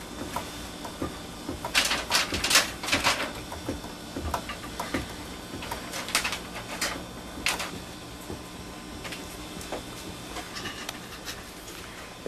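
Paper being handled: sheets of sprocket-holed continuous printer paper rustling and crinkling in short, irregular bursts, busiest about two to three seconds in, over a faint hum.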